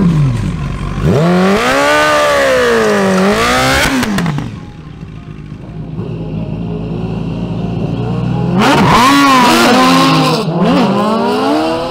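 Superbike inline-four engines revving hard in a drag race, in two long bursts whose pitch swings up and down: one about a second in, and another near the end. A lower idle runs between them.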